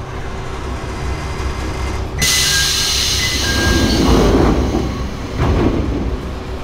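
A diesel railcar on the Joso Line rapid service running through the station without stopping, heard from a train waiting beside it. A rush of noise starts suddenly about two seconds in, with a brief high two-note tone. It swells to a clattering of wheels on the rails at its loudest about four seconds in, then tails off.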